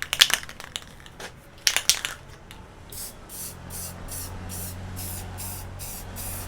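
Aerosol spray-paint can rattled, its mixing ball clicking, then sprayed in a quick series of short hissing bursts, about two or three a second, from about three seconds in.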